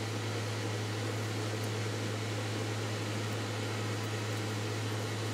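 Steady room tone: a low, unchanging machine hum with an even hiss over it.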